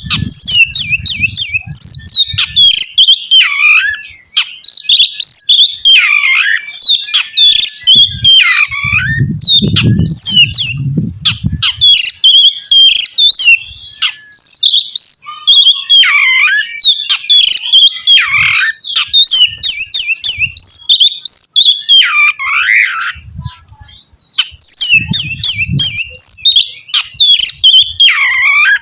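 Oriental magpie-robin (kacer) singing continuously in fast, varied phrases of whistles, sliding notes and harsh chattering, loud and full of mimicked variations. A low rumble sits under the song about ten seconds in.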